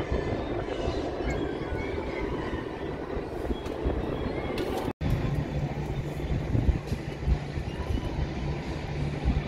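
Aerial cable car running along its haul cable past a tower's sheave wheels: a continuous rail-like rumble and clatter. After a brief dropout about halfway through, a steady low hum joins the rumble.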